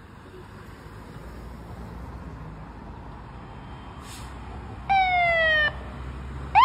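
Fire engine leaving its station: its engine rumble grows, a short hiss sounds about four seconds in, then the siren gives a brief falling chirp a second later and starts up again just at the end.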